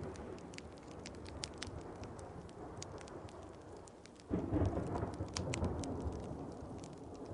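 Thunder rumbling low under steady rain, swelling suddenly about four seconds in, with sharp crackles of a wood fire scattered throughout.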